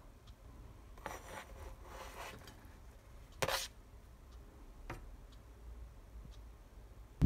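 Faint kitchen handling: a soft scraping for a second or so, then one sharp knock about three and a half seconds in and a lighter tap about a second later, from a knife and plate being handled.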